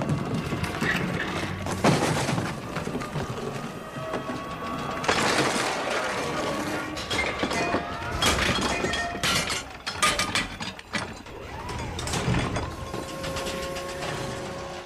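A string of mechanical clicks, rattles and knocks with breaking and shattering sounds, with a few short tones among them.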